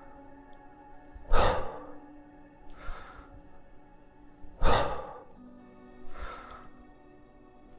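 A man breathing hard in rhythm with kettlebell presses: a loud breath every three seconds or so, with a softer breath between, as the bell goes up and comes down.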